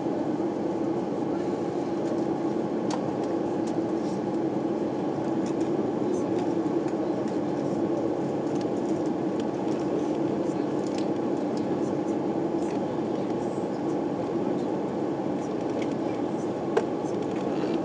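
Steady cabin drone of an Airbus A340 airliner, its engines and airflow heard from inside the passenger cabin, with a few faint ticks and one small click near the end.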